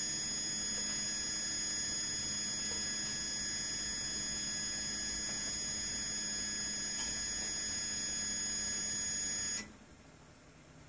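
Printrbot Play 3D printer's stepper motor whining steadily with several constant high tones as it slowly lowers a pipette tip-comb into a well plate. The whine cuts off abruptly about a second before the end, leaving only a faint hum.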